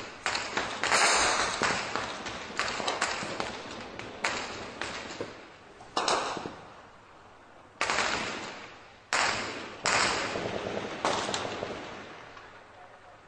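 Heavy gunfire: a quick series of shots and short bursts, each echoing and dying away. The loudest reports come about six, eight, nine and ten seconds in.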